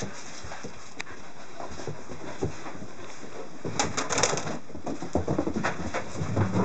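A rough collie puppy and a Norwegian elkhound playing together: scuffling, with low cooing-like vocal sounds from the dogs and a cluster of short scrapes and knocks about four seconds in.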